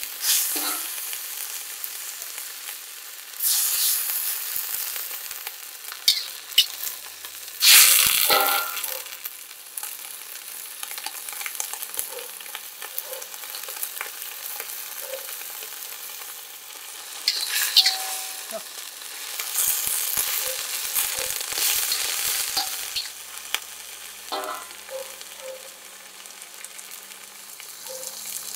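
Greens and salted fish sizzling in oil in a steel wok, stirred with a metal spatula that scrapes and clicks against the pan. The sizzle swells in loud surges each time the food is turned, several times over.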